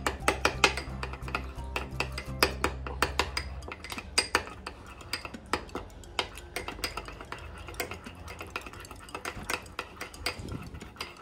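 A utensil stirring miso and mirin together in a bowl, with quick irregular clicks and scrapes against the bowl as the miso is thinned into a marinade. A low hum underneath stops about four seconds in.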